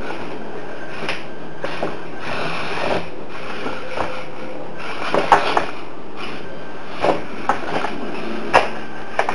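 Tiny electric motors and plastic gearbox of a Tamiya 1/32 mini RC crawler running under a steady hiss, with irregular clicks and knocks as its wheels and body clamber over hard objects. The loudest knocks come about five seconds in.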